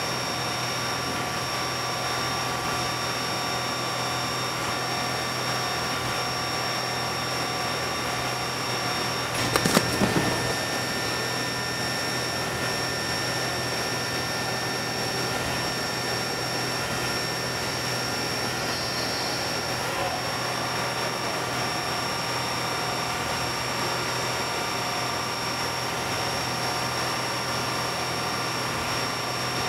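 Steady hum of factory machinery, carrying several steady tones. A short burst of clattering knocks comes about ten seconds in.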